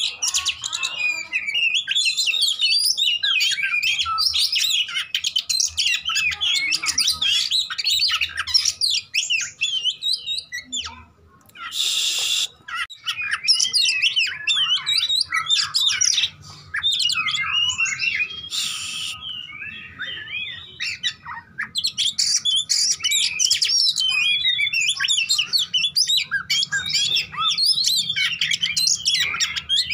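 Oriental magpie-robin (kacer) singing in fighting mood: a rapid, almost unbroken stream of varied whistles, trills and chirps. Near the middle there is a brief pause and two short harsh rasps.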